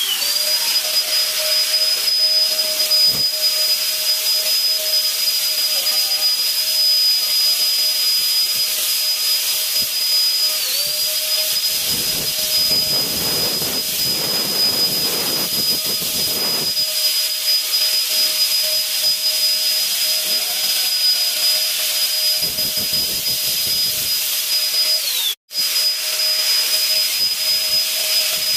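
Electric insecticide fogger's blower motor running with a steady high whine over a lower hum, its pitch dipping briefly twice. A rushing hiss of spray swells for a few seconds midway and again later on.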